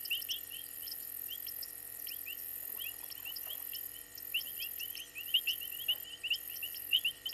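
Night chorus of calling insects and frogs: a continuous high, pulsing trill with rapid repeated chirps over it.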